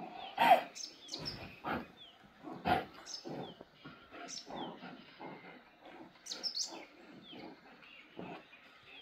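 Dogs growling and barking in irregular rough bursts, the loudest about half a second in and another strong one near three seconds.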